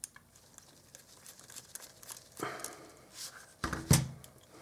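Small clicks and scrapes of hand tools working on a small screw in a metal camera lens, with a sharp knock a little before the end.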